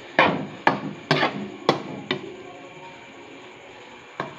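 A spoon knocking and scraping against a cooking pan while stirring beef mince: a run of sharp clacks through the first two seconds, then one more near the end.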